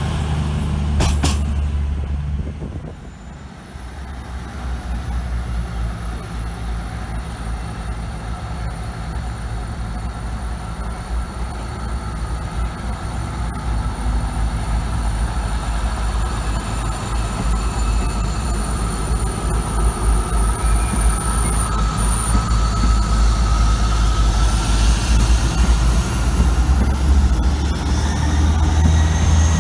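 A CrossCountry Class 220 Voyager's diesel rumble for the first couple of seconds. After a break, a South Western Railway diesel multiple unit runs along the platform, its low engine rumble and a faint whine growing steadily louder.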